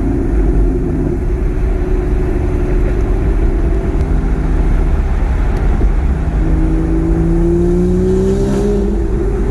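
A car engine runs steadily with a heavy low rumble; about two-thirds of the way through, its pitch climbs slowly as the engine revs up under acceleration.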